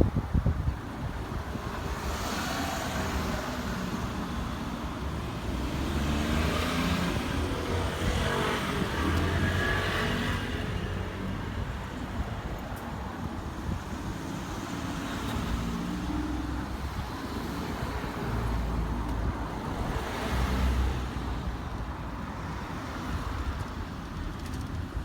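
Diesel-hydraulic DE10 locomotive engine running, its pitch rising and falling with the throttle, over a continuous rumble that swells several times. A few sharp knocks at the very start.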